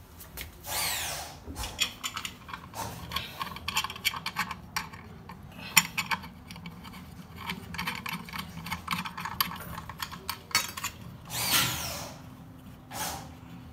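Sink waste strainer being twisted and screwed into the drain of a stainless steel sink: dense clicking and scraping of its metal and plastic parts. A longer sweeping scrape comes about a second in and another near the end.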